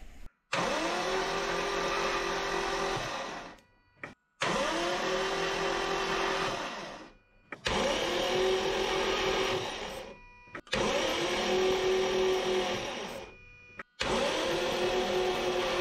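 Starter motor cranking a Toyota 1G-FE straight-six that does not catch, in five separate bursts of about three seconds each. Each burst has a whine that rises as the starter spins up, then holds steady, and each stops abruptly. The cranking is a spark check with a plug pulled out into its coil, on an engine that will not start on its new Speeduino ECU.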